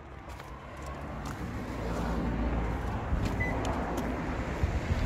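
Low rumble of a motor vehicle with road traffic noise, growing louder about a second and a half in and then holding steady.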